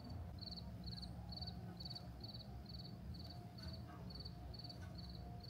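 An insect chirping in the woods, faint: short, high, trilled chirps repeating evenly about two and a half times a second, over a faint steady low hum.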